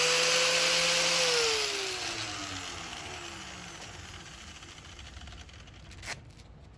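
Power grinder sharpening a lawn mower blade, then switched off: its motor pitch falls steadily as it spins down over a few seconds. A short knock near the end.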